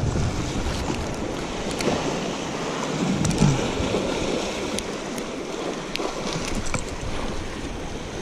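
Sea surf washing against a jetty, a steady rushing noise, with a few faint ticks scattered through it.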